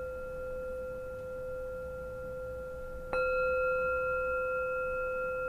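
Tibetan singing bowl resting on an open palm, ringing freely with a clear, sustained tone of a few steady partials. It is struck again about three seconds in and rings on louder, undamped because nothing grips it.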